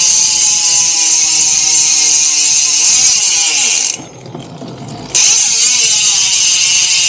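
Freehub of a Bontrager Aeolus Pro 3V wheel buzzing loudly as the wheel freewheels. It cuts out for about a second around the middle and then starts again.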